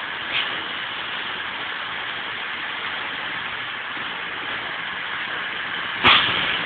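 CrossCountry Class 220 Voyager diesel multiple unit running slowly into the station, its underfloor diesel engines making a steady drone. A sudden louder rush of noise comes near the end as the cab draws close.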